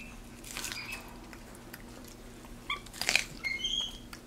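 Capuchin monkey giving a few short, high-pitched chirps in the second half, with a couple of brief crunching bites as she eats corn on the cob.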